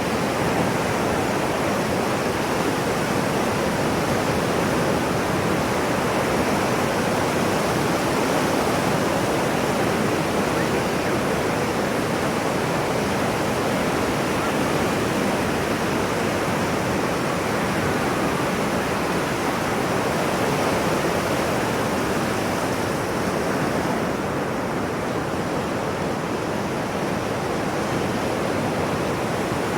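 Ocean waves: a steady, even rush of surf with no clear breaks between waves, used as a sleep sound.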